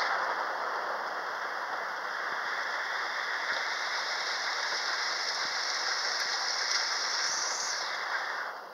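Heavy thunderstorm rain pouring down in a loud, steady hiss. It starts abruptly and fades out near the end.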